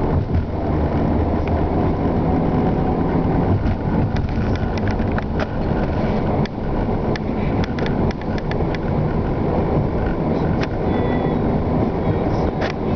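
Steady road and tyre noise heard inside a moving car's cabin, with scattered light clicks throughout.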